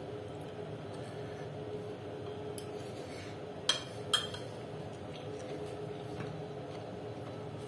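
A metal spoon clinks twice against a ceramic dinner plate as it is set down, two sharp chinks about half a second apart, over a steady background hum.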